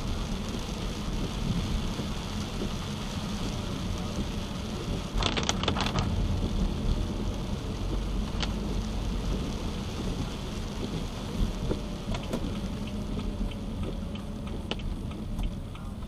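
Steady hiss of rain and tyres on a wet road, heard from inside a moving car over a low steady hum, with a brief louder rush about five seconds in.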